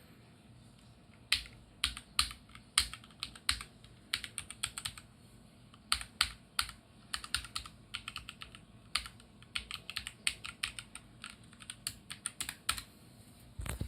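Computer keyboard being tested: keys pressed in an irregular run of sharp clicks, starting about a second in, with a louder knock at the very end.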